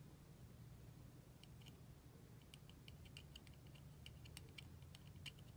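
Faint, irregular little clicks and ticks of small metal lighter parts being handled during reassembly of a flat petrol cigarette lighter. They start about a second and a half in and come more often toward the end, over a low steady hum.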